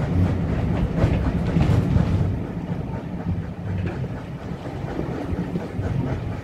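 A steam-hauled passenger train running along the track, heard from an open carriage window: a steady rumble from the carriage wheels on the rails, with scattered clacks, easing a little after about two seconds.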